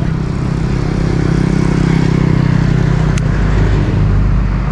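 A motor vehicle's engine running close by with a steady hum, its upper tones fading after about two and a half seconds.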